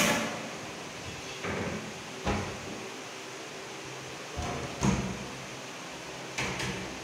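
Laminated wooden wardrobe loft doors being pulled open by hand one after another: three sharp knocks about two and a half seconds apart, with softer clicks between them.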